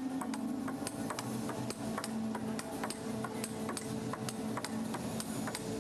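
Table tennis ball clicking back and forth off bats and table in a steady warm-up rally, several hits a second, with arena music playing underneath.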